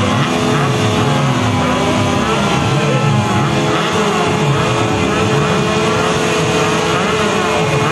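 Race car engines running hard, several at once, their pitch rising and falling over one another as they rev and change gear.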